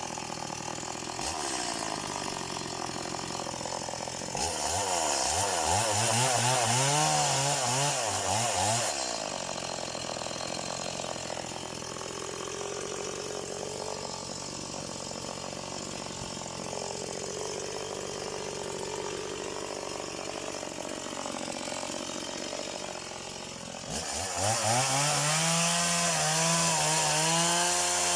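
Stihl MS180 two-stroke chainsaw idling, then revved to full throttle for about four seconds and let drop back to idle. It is revved up again near the end.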